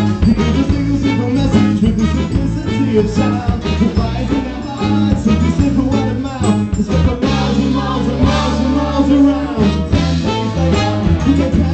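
Live band playing a song: electric guitar, trumpet, keyboards and drums over a steady bass line.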